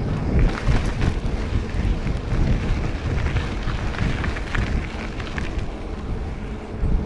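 Waterfall water rushing in a loud, steady hiss, with uneven low buffeting on the microphone.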